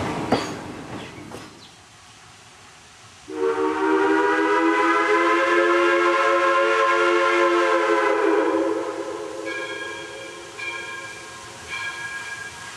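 Passing train noise with wheel clicks fades out over the first two seconds. About three seconds in, the steam locomotive's whistle sounds one long blast of several notes together, dying away after about five seconds. Then a grade-crossing bell starts ringing, about one stroke a second.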